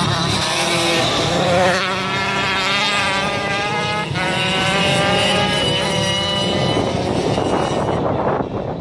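Several 85cc-class racing motorcycles circling a dirt flat track, their overlapping engines rising and falling in pitch as the riders roll off and open the throttle. The engines fade away after about six and a half seconds.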